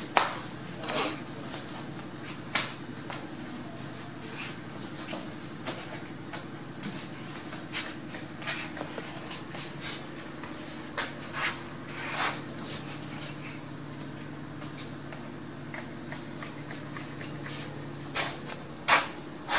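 Scattered short knocks, scuffs and rustles over a steady low hum.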